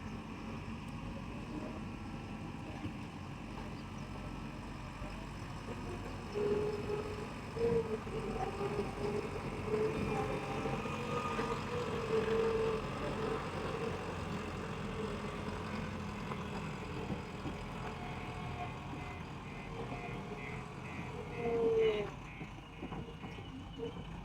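Heavy diesel earth-moving machinery at work: a steady engine rumble with a wavering tone that rises and falls, and a few louder surges. Near the end comes a quick run of short beeps.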